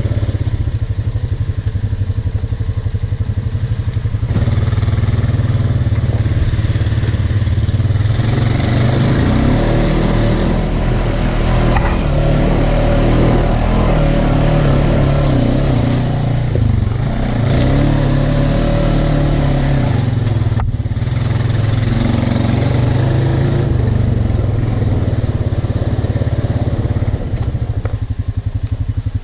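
Side-by-side UTV engine driving off-road, its revs rising and falling as the throttle is worked, busiest in the middle stretch and steadier near the start and end.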